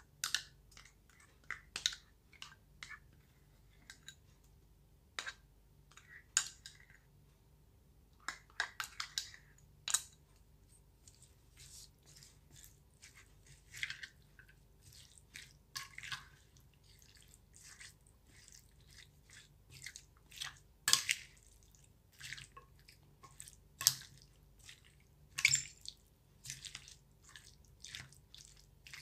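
A spoon mixing mayonnaise into a bowl of chopped chicken, pineapple and vegetables: irregular wet squishes and sharp clicks of the spoon against the bowl.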